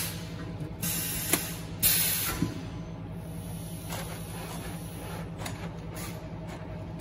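Coarse abrasive cloth being dragged by hand over a cutting machine's rollers and feed table: three rasping slides in the first few seconds, with a sharp click among them, over a steady low machine hum.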